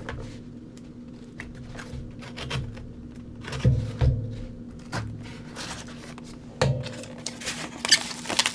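Scissors cutting open a cardboard shipping box, then the cardboard flaps being opened and handled with several sharp knocks, and a crinkle of bubble wrap near the end.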